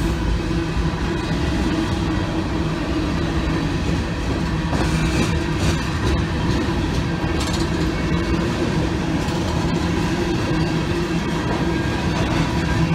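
Empty coal train's open-top cars rolling past, a steady running noise of steel wheels on rail.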